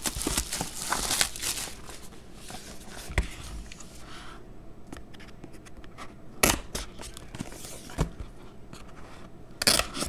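Plastic shrink wrap crinkling and tearing as it is pulled off a cardboard trading-card box, then a knife blade scraping as it slits the box's foil seal sticker. A few sharp taps and knocks of the box and blade come through, about three seconds in, at six and a half, at eight, and near the end.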